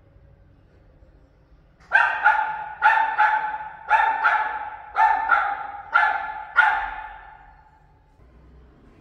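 A dog barking in a rapid series of about ten sharp barks, roughly two a second, each trailing off with an echo. The barking starts about two seconds in and stops near the end.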